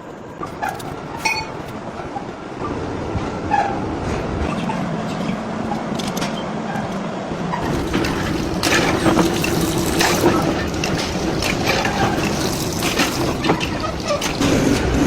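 Heavy workshop machinery running, with scattered metallic knocks and clanks. A steady hum joins about halfway through, and the noise grows louder.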